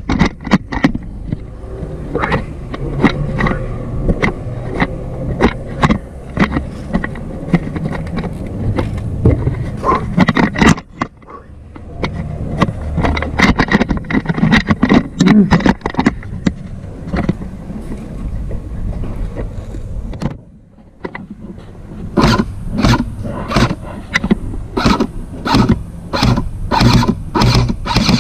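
Footsteps of a player walking over rough ground, a steady stream of crunching knocks with gear rattling and wind rumbling on a body-worn camera. From about 22 s in the steps settle into an even pace of a little over two a second.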